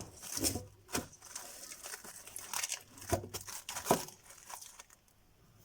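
Crinkling and rustling of a plastic cover being pulled over a container, with a few sharp crackles, dying away about four and a half seconds in.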